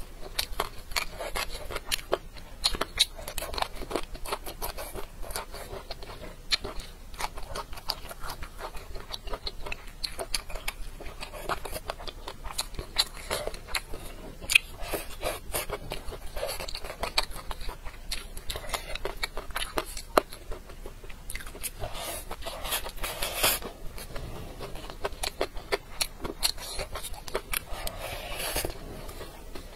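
Close-miked eating: a person chewing and crunching braised bamboo shoots with steady wet mouth clicks, with a few louder slurps as food is drawn in, about two thirds of the way in and near the end.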